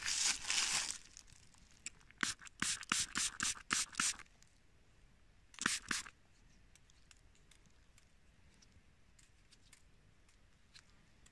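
Close-up scratchy rubbing and scraping of fingers working soil off a small freshly dug coin. There is a quick run of about eight scrapes a couple of seconds in and a few more near the middle.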